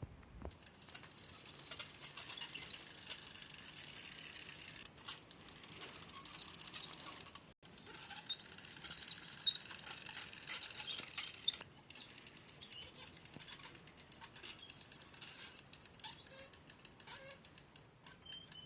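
A small mechanism running with a fast, fine clicking whir, cutting out for an instant about seven and a half seconds in and getting quieter a few seconds later.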